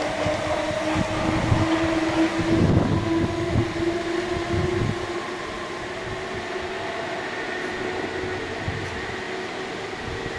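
South Western Railway electric multiple unit moving away, its traction motors giving a steady whine. Its wheels knock over rail joints through the first half, and the sound slowly fades as it recedes.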